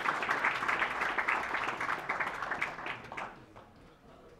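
Audience applauding, fading out about three seconds in.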